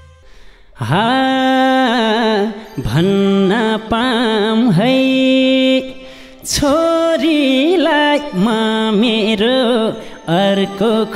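A man singing a Nepali dohori folk verse into a microphone, starting about a second in after the band stops: long held, ornamented phrases with short breaks for breath, with no drum beat under them.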